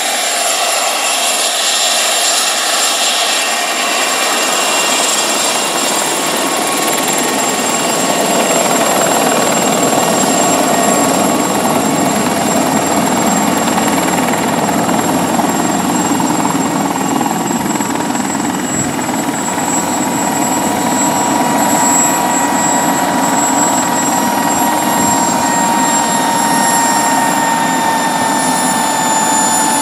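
Mosquito XET kit helicopter's turbine engine and main rotor running as it hovers and sets down on its skids: a steady turbine whine over rotor noise, the whine falling slightly in pitch in the second half.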